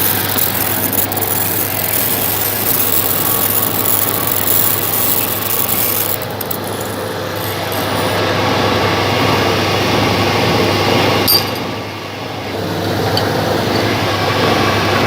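Lathe running with a steady motor hum and a scratchy, high-pitched machining noise that eases off about six seconds in and returns. There is a short sharp click about eleven seconds in, then a brief drop in level.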